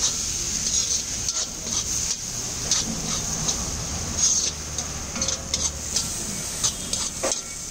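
A metal spatula scraping and knocking against a large iron wok as vegetables and spices are stir-fried, in irregular strokes over a steady sizzle.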